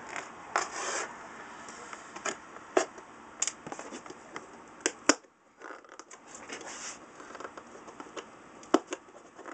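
A cardboard Priority Mail shipping box being handled and worked at to get it open: scraping and rustling cardboard with scattered sharp clicks and taps, the loudest a sharp snap about five seconds in.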